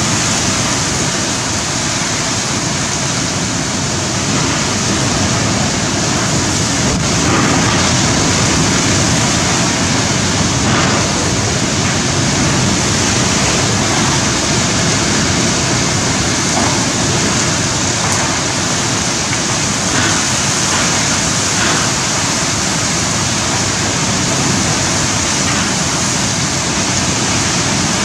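Tropical cyclone wind and very heavy rain: a loud, steady rush of storm noise.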